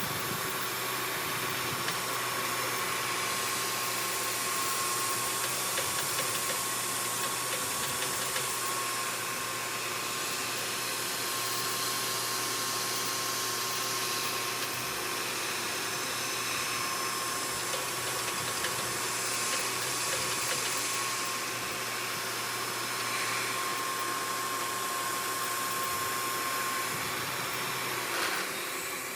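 CNC knee mill running a toolpath in aluminum: a steady hiss of machining with a thin, high spindle whine, which stops near the end.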